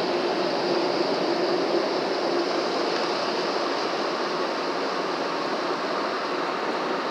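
Ryko Velvet Touch 2000 rollover car wash working over the car, heard from inside the cabin: a steady rushing noise that fades a little towards the end.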